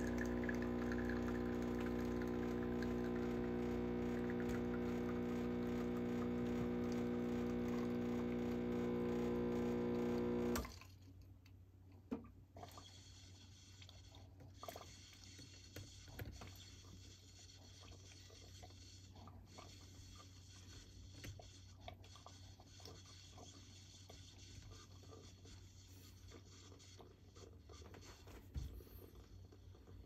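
Espresso machine's vibratory pump humming steadily as it pushes water through the shot, then cutting off abruptly about ten seconds in. Afterwards only faint scattered ticks and drips remain.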